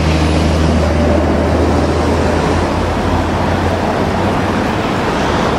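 Steady road traffic noise, with a vehicle engine's low drone that fades about halfway through.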